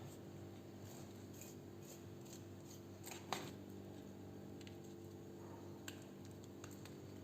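Knife scoring the unbaked semolina cake into squares in its baking tray: faint scraping and light clicks of the blade, with one sharper tap against the tray a little over three seconds in.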